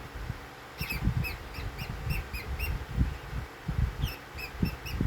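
Lovebird giving quick runs of short, high chirps: one run of about eight chirps starting about a second in, and another near the end. This is the chatter it makes while settled to sleep. Low rumbling thumps sound underneath throughout.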